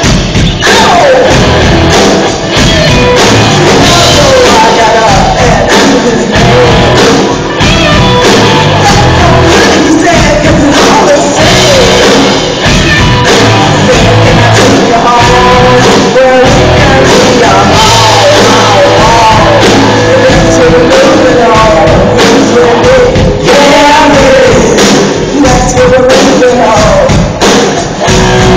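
A live rock band, electric guitars and drums, playing loudly with a singer on lead vocals.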